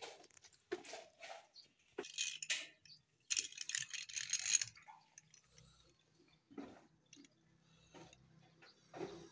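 Loose broken rock clinking and clattering in short bursts as dug-out stones are tipped from a bucket onto a spoil pile, with a louder rattling burst lasting over a second about three seconds in.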